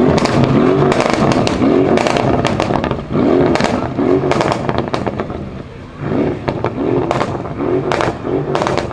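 Mercedes-Benz CLS63 AMG's RENNtech-tuned twin-turbo V8 revved in a series of quick throttle blips, each rising and falling in pitch, with loud crackles and pops from the exhaust as the revs drop.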